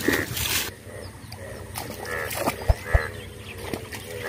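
A splash of thrown water at the start, then frogs calling in a flooded field: short, pitched calls repeated every few tenths of a second.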